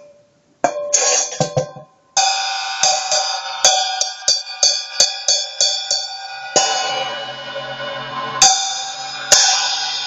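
Wuhan 14-inch hi-hat cymbal struck with a drumstick. First come a few short hits that are cut off quickly. Then comes a run of even strikes about three a second over a building metallic wash, and a heavier, fuller hit past the middle. Two more sharp hits near the end leave the cymbal ringing.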